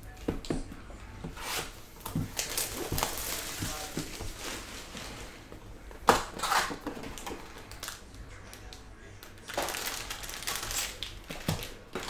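A cardboard trading-card hobby box being handled and opened, with scattered clicks and rustling, a sharp knock about six seconds in, and crinkling of foil card packs as they are pulled out near the end.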